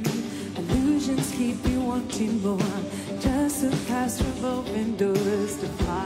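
Female pop singer singing live with a full band, the voice held in long sustained notes over a steady drum beat.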